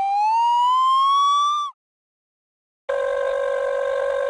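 Two edited-in sound effects. First, a rising whistle-like tone slides up in pitch and cuts off suddenly after about a second and a half. Then, after a moment of dead silence, a steady buzzing tone, like a buzzer or horn, starts about three seconds in and holds level.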